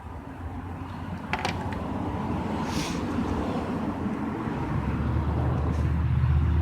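A motor vehicle approaching, its low engine rumble growing steadily louder, with a steady engine hum coming through near the end. A sharp click sounds about a second and a half in.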